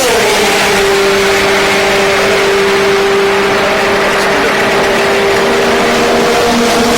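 Group C endurance racing prototype engine at high revs. Its note drops in pitch at the very start, holds steady for several seconds, and drops again near the end.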